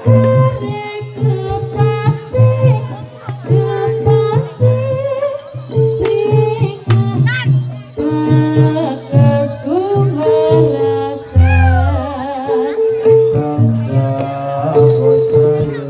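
Live jathilan dance accompaniment: a traditional Javanese ensemble playing a steady repeating melody over a low drum beat, with a singer's voice gliding over it.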